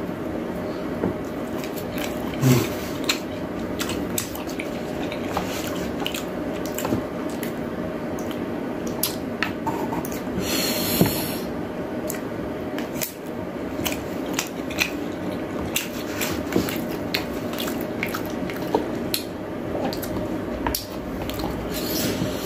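Eating at a table: wooden chopsticks clicking against a bowl and plastic food trays, with chewing and mouth noises, as short scattered clicks over a steady low room hum. A brief hiss comes about eleven seconds in.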